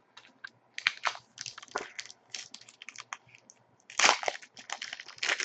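Trading cards being handled and slid against one another: a scattered run of small dry clicks and scrapes, busiest about four seconds in.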